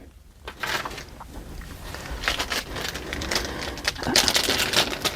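Packaging being handled: rustling and crinkling with many small irregular clicks, getting louder about four seconds in.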